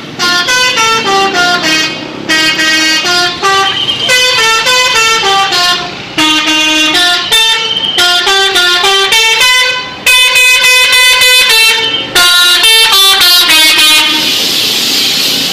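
Telolet bus horn, a multi-tone musical air horn, playing melodic phrases of quick stepping notes, mostly falling in pitch, repeated in runs of about two seconds, with a fast pulsing trill about ten seconds in. Near the end the horn stops and a rushing noise takes over.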